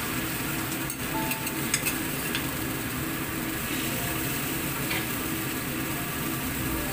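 Eggplant adobo sauce sizzling and bubbling in a wok as a spatula pushes pieces of fried fish into it, the spatula clicking against the wok a few times between about one and two and a half seconds in and again near five seconds.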